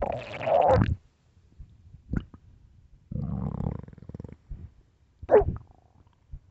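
A person's stomach growling in irregular gurgles. A loud gurgle comes at the start, a short squeak about two seconds in, and a longer low rumble about three seconds in. A sharp squeal a little after five seconds is the loudest.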